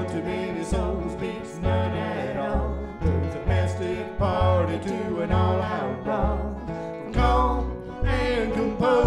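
Country song playing as background music, with guitar and a steady bass beat.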